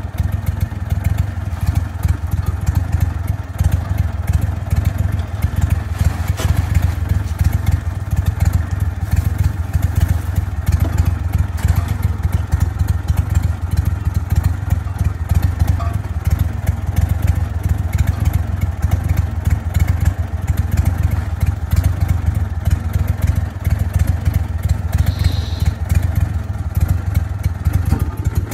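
Crawfish boat's engine running steadily, with crawfish and wire traps clattering onto a metal sorting table.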